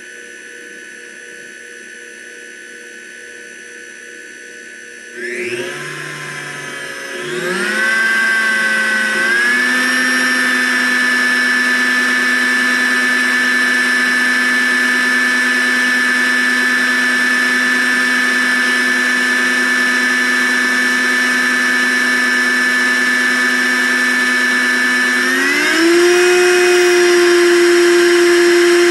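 Blendtec Designer 625 blender motor running with no jar on, on a timed cycle. Its steady whine gets louder and rises in pitch about five seconds in, settles by about ten seconds, then steps up in speed again near the end.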